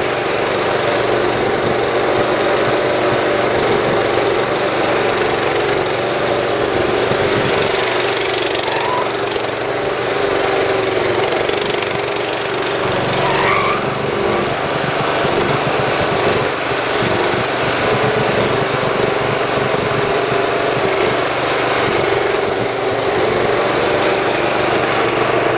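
Engine of a 1995 Dixon 3304 zero-turn riding mower running steadily as the mower drives off and comes back, on its rebuilt friction-drive transaxle.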